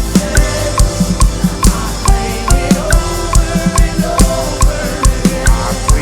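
A drum kit playing a steady beat with kick, snare and cymbals, over band music with held melodic lines, in a song's chorus.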